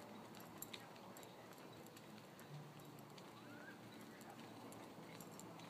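Near silence: faint outdoor ambience with scattered light ticks and one short rising chirp a little past the middle.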